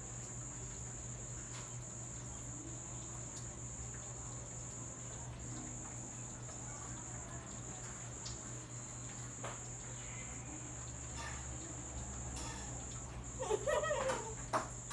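A cricket's steady high-pitched trill over a low steady hum, with a few soft rustles of pillows and bedding. Near the end a young girl's voice is heard briefly.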